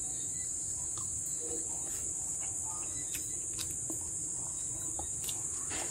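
Steady high-pitched drone of insects, with faint scattered clicks.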